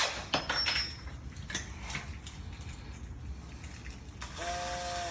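Sharp metallic clicks and clinks of tools and mortise-lock hardware being handled, loudest in the first second, then a steady pitched hum starting about four seconds in.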